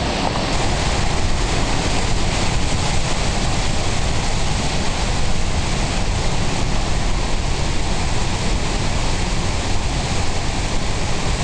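Niagara Falls' falling water, a loud steady roar of pounding water heard at close range, partly from a rock tunnel opening behind the falling sheet.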